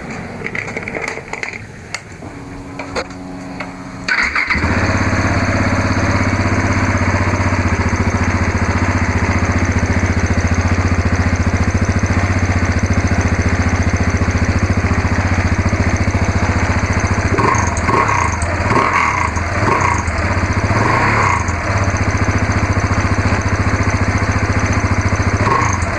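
Husqvarna 701's single-cylinder engine is cranked and catches about four seconds in, then idles steadily through its exhaust, with a few brief throttle blips near the end.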